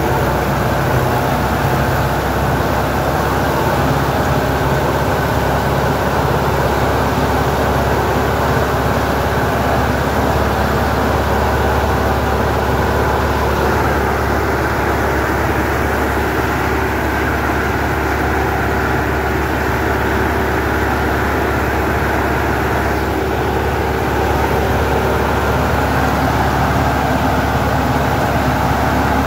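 Sonalika 75 HP tractor's diesel engine running steadily under load, heard from the driver's seat, as it pulls a 4-foot rotavator through a field.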